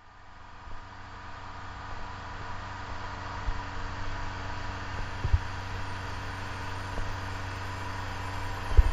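Motorboat engine running steadily at speed, with the rush of wind and water, fading in over the first couple of seconds; a few short thumps stand out.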